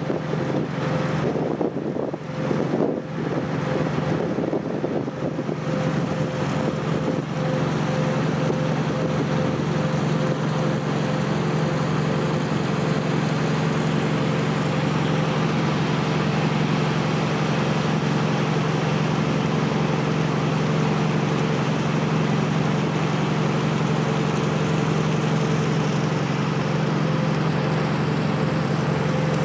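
A boat's engine drones steadily as it crosses the sea, with a rushing wash of water and wind. Wind buffets the microphone during the first few seconds, then the sound settles to an even drone.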